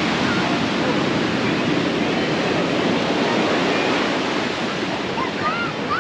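Steady wash of ocean surf breaking on a sandy beach, with wind buffeting the microphone. Faint voices of a beach crowd rise through it here and there, most near the end.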